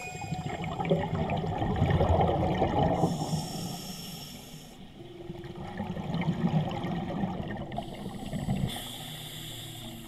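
Scuba diver breathing through a regulator underwater: a hiss on each inhale alternating with a rumble of exhaled bubbles, about two breaths.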